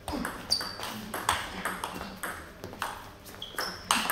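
Table tennis rally: the ball clicks off the bats and the table at about two hits a second, some of the bounces with a short high ping.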